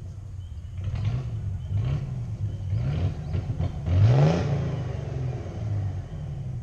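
Car engine revved hard in repeated bursts, its pitch climbing with each one, the loudest about four seconds in, as the driver pushes the car through the off-road course.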